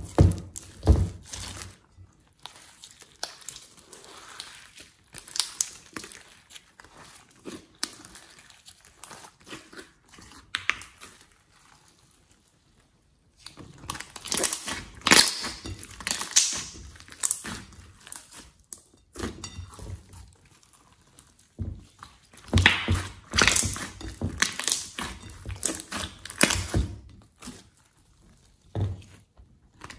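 Hands kneading, squeezing and stretching glossy slime: irregular wet squishing with sticky pops and crackles, pausing briefly about twelve seconds in.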